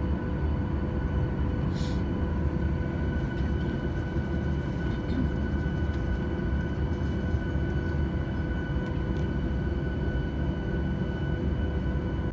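Steady low rumble of a moving vehicle heard from inside, with a constant whining hum over it; a brief click comes about two seconds in.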